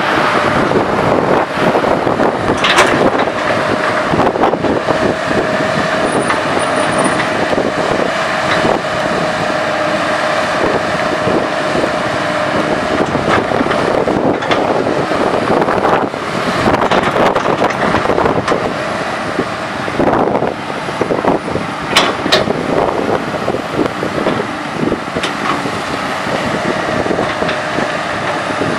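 Komatsu PC200 hydraulic excavator's diesel engine running under load while it digs soil. A steady whine sounds through about the first half, and a few sharp knocks come from the working bucket and arm.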